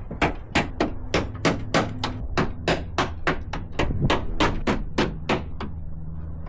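A hammer striking repeatedly in a fast, even rhythm, about three blows a second, knocking a stuck part of the Land Rover Defender's front end loose. The blows stop shortly before the end.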